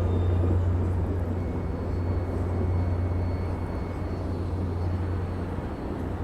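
Caltrain diesel locomotive pulling a departing train, its engine running with a steady low drone over rumbling train noise.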